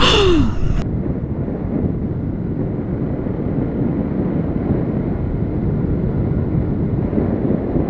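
A short louder sound with a falling pitch cuts off abruptly under a second in; then steady wind rush on the microphone with a motorcycle running underneath as it rides along a road.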